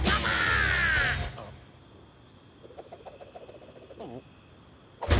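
A cartoon Rabbid's squawking cry, sliding down in pitch for about a second over background music, both cutting off; after that it is fairly quiet, with a few faint taps.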